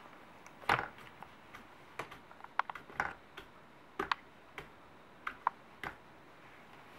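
Light, irregular clicks and taps of a small plastic spoon knocking against a plastic high-chair tray, about a dozen spread over several seconds.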